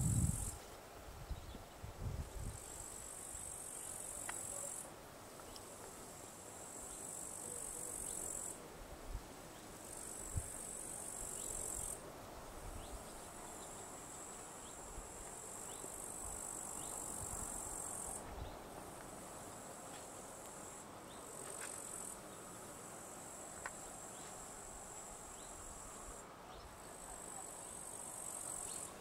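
Insects chirring in a high, steady trill that comes in bouts of a few seconds with short breaks between. There are a few soft low thumps in the first couple of seconds.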